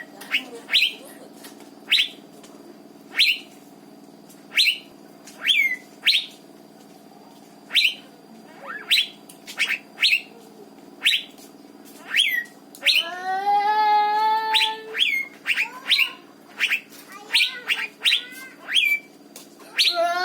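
Asian fairy-bluebird (cucak biru) calling over and over: short, sharp falling whistled notes about once a second, coming faster near the end, with one longer, drawn-out call about two-thirds of the way through.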